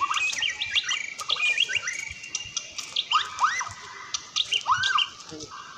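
Several birds chirping and calling: a busy mix of short whistled notes and arching calls. A few brief clicks are scattered among them.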